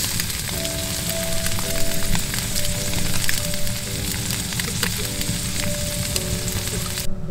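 Blocks of fried tofu sizzling on a hot iron griddle, a steady hiss with small pops and crackles that cuts off suddenly near the end. A soft melody plays over it.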